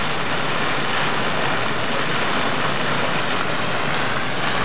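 Fountain water jets spraying up and splashing back into the basin: a steady rush of falling water.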